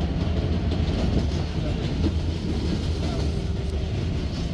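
New York City Subway 7 train running along the track, heard from on board: a steady low rumble of the car with wheel and rail noise.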